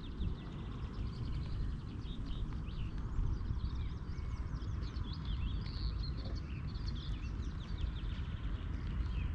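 Several small birds singing, many quick overlapping high chirps and falling notes, over a steady low rumble.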